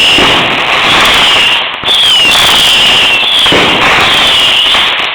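Consumer fireworks going off: a dense, continuous hiss and crackle with short falling whistles repeating about every second or so, dipping briefly about two seconds in and again near the end.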